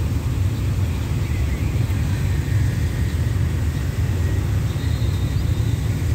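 Steady low rumble of a diesel locomotive hauling an express train, approaching from a distance.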